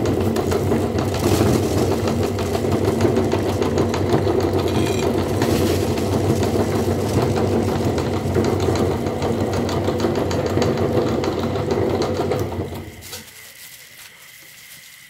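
Belt-driven metal meat grinder running steadily with a crunching crackle as it grinds Milo chocolate-malt balls into powder. It winds down and goes quiet near the end.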